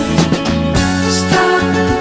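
Background music: a song with instruments.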